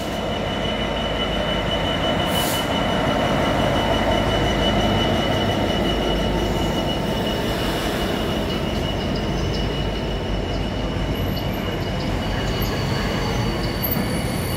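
Freightliner Class 66 diesel locomotive, with its two-stroke V12 engine, running through non-stop, followed by its container flat wagons rolling past with a steady rumble of wheels on rail and a high wheel squeal.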